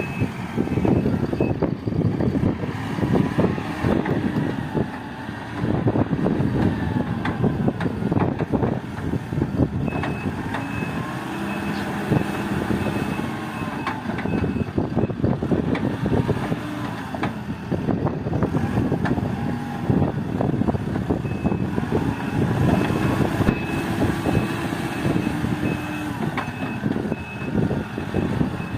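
JCB backhoe loader's diesel engine working under load, its pitch rising and falling, with scattered clanks and knocks. A reversing alarm beeps steadily in two spells, around the middle and again near the end.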